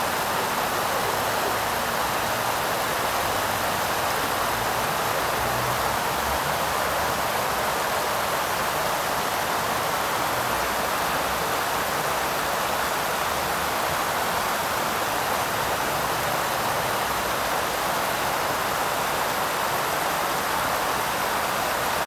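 Water cascading down a sloping artificial waterfall wall and splashing into the pool at its foot: a steady, even rushing.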